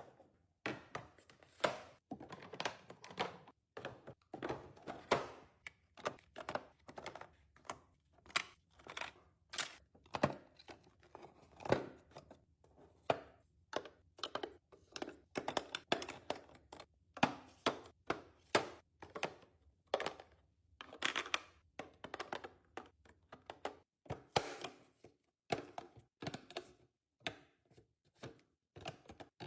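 Packaged food and storage containers being handled and set down: an irregular run of short thunks, taps and plastic-packaging crinkles, one or two a second.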